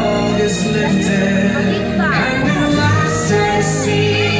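Fireworks-show soundtrack music with singing, at a loud, even level.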